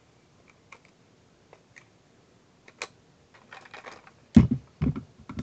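Plastic clicks and knocks from a Westcott iPoint Evolution battery pencil sharpener being handled and moved about, sparse at first and busier after about three seconds, with two heavy thumps at about four and a half seconds.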